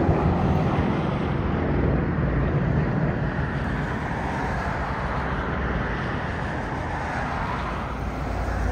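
Engine drone of a formation of single-engine piston propeller aircraft flying past, a steady noise.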